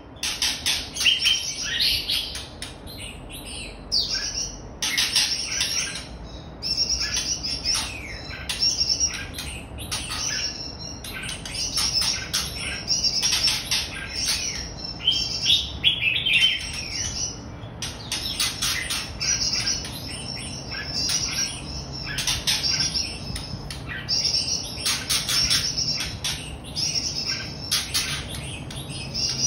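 Red-whiskered bulbul singing: long runs of rapid chirps and whistled notes, broken only by short pauses.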